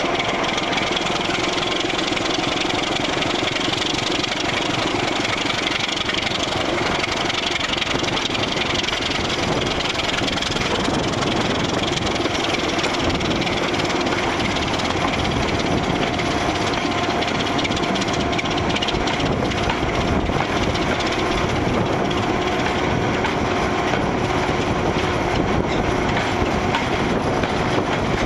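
A British Rail Class 26 diesel locomotive on the move, its Sulzer six-cylinder engine running, with wheels on the rails and rushing air in one steady din.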